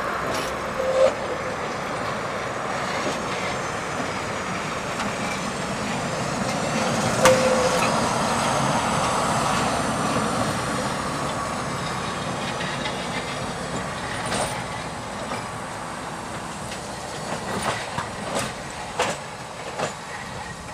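Tatra tramcar running on its rails: a steady rolling rumble that swells as it passes close, with a loud metallic clank about seven seconds in. Near the end, a string of separate clacks from wheels passing over rail joints and points.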